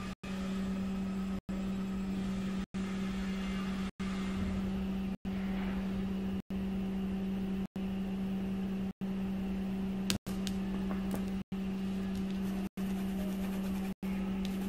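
A steady low mechanical hum, dropping out to silence for an instant about every second and a quarter, with a single short click about ten seconds in.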